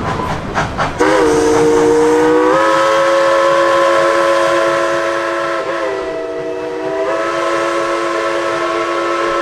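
Steam locomotive's chime whistle blowing one long chord of several notes, starting about a second in after a brief rhythmic clatter. The chord lifts slightly in pitch as it opens, sags for about a second in the middle, then comes back steady.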